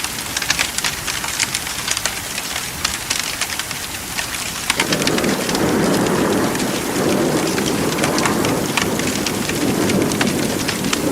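Steady rain with a dense patter of drops. About halfway through, a low rolling rumble of thunder comes in and carries on under the rain.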